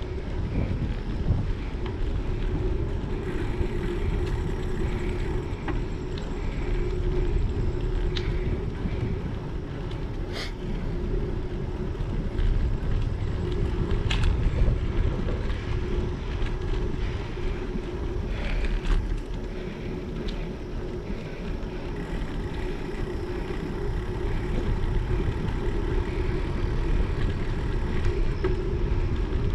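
Wind rushing over the microphone of an action camera on a moving bicycle, mixed with the rumble of tyres rolling on asphalt. A few sharp clicks stand out, about ten and fourteen seconds in.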